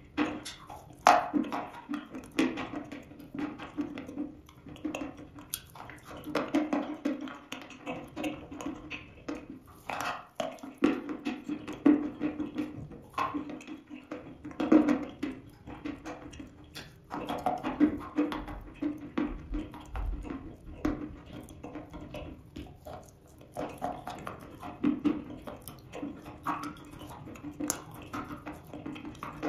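Close-miked chewing of dry chalk pieces mixed with cream: irregular crunches and clicks with wet, sticky mouth sounds.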